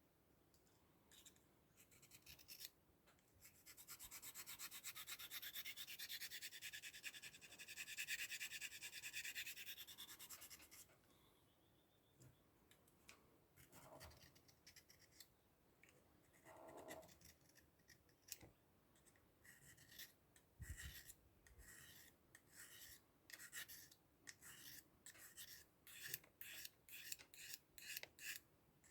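Steel knife blade of a Victorinox Swiss Army knife being drawn along a sharpening rod, faint. A long continuous rasp comes first, then a run of short strokes that come quicker near the end.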